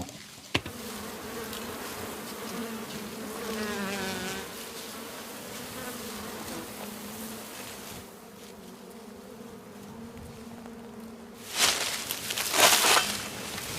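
Film sound-design mix of a bee swarm buzzing steadily over soft wind and rustling grass stalks, with one buzz wavering in pitch about four seconds in. Near the end come several loud rustling swishes.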